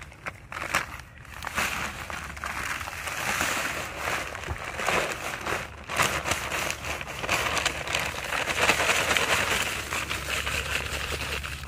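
Paper bag of dry concrete mix crinkling as it is handled and tipped into a post hole, with the powdery mix pouring out in a steady rush that grows stronger in the second half.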